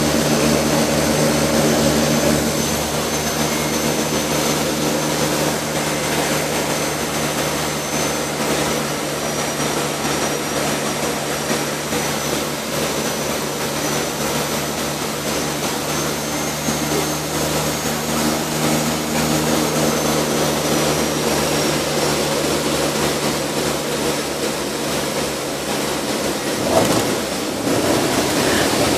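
Twin Pratt & Whitney PT6A turboprops of a DHC-6 Twin Otter heard from inside the cabin on final approach: a steady propeller drone with a thin high turbine whine above it. Near the end the low drone breaks off and the sound shifts.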